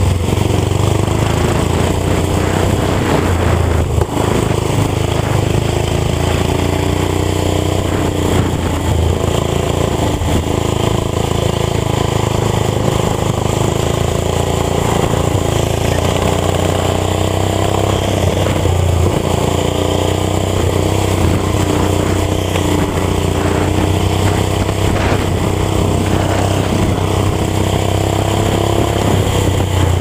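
Riding lawn tractor's small gasoline engine running hard under way, its pitch repeatedly rising and falling as it speeds up and eases off around the track.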